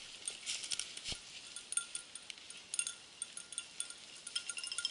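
Bell on a hunting setter's collar tinkling irregularly as the dog moves through the woods, louder and busier near the end. Dry leaves crackle in the first second.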